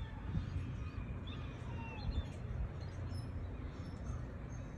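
Wind on the microphone: a steady, uneven low rumble. Over it come a few faint, short chirping bird calls that slide up and down in pitch.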